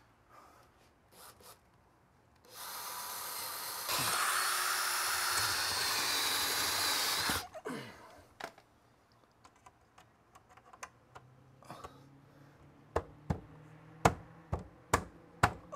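Power drill boring a handle hole through a cabinet door with a larger bit, enlarging the pilot hole: it runs for about five seconds, gets louder about a second in as the bit bites, then stops. Near the end comes a quick series of sharp clicks and knocks.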